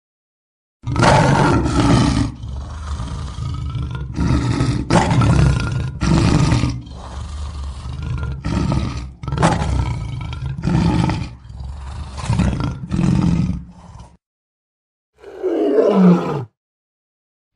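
Lion roaring: a long run of deep, repeated roars, about one a second, that stops about fourteen seconds in. After a short pause comes one more call, falling in pitch.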